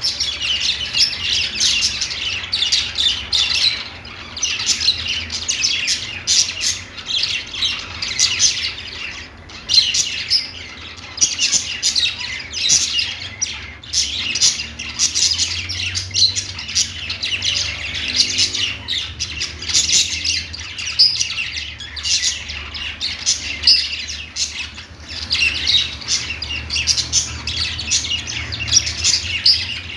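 Pet budgerigars singing and chirping, a dense run of quick high chirps and squawks with hardly a pause.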